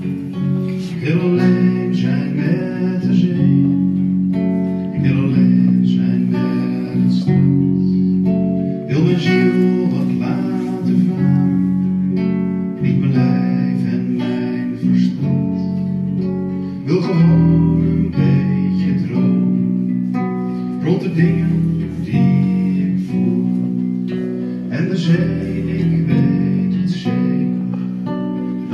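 Live acoustic band music: two acoustic guitars strummed over an electric bass guitar, with singing.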